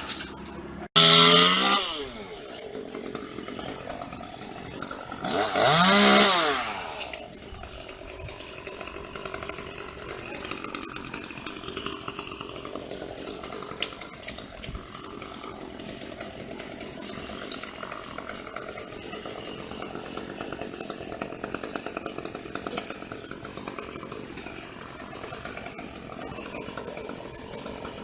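Chainsaw revving up loudly twice, about a second in and again around six seconds, then running steadily at a lower level for the rest.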